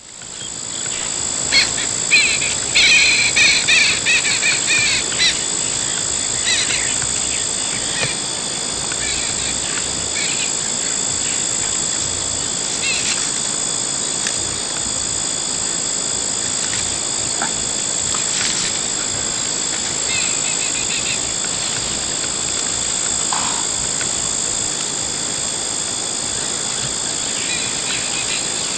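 Bush ambience: steady, high-pitched insect trilling, with a rapid run of bird calls between about two and five seconds in and scattered single chirps after that.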